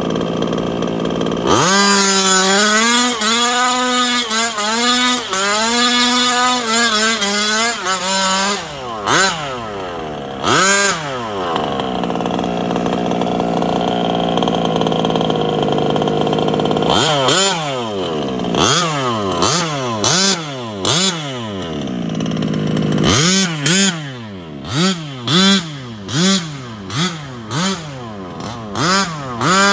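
Losi 5IVE-T 2.0 large-scale RC truck's two-stroke petrol engine idling, then revved in repeated quick bursts and driven hard, its pitch rising and falling with the throttle. It settles back to a steady idle for a few seconds in the middle before more bursts of revving.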